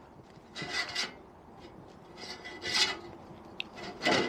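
Steel chain breaker tool being wound in against a moped drive chain to press out a link pin: metal scraping and rubbing in a few short strokes, with a brief squeak near the end.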